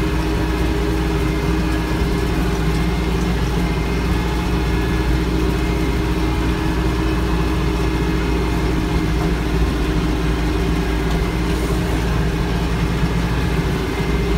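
Branson 4520C tractor's diesel engine running steadily under load, driving a rotary mower through the PTO in economy PTO mode.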